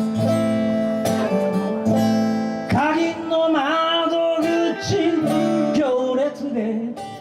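Song played on strummed acoustic guitar in a break between sung lines, with a wavering lead melody line coming in about three seconds in.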